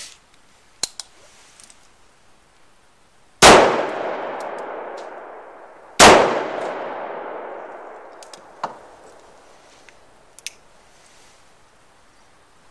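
Two handgun shots about two and a half seconds apart, each trailing off in a long echo, with a few light clicks between and after them.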